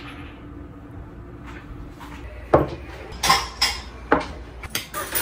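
Ceramic plates and utensils clinking and knocking as dishes are set down on a table, with several sharp strikes in the second half.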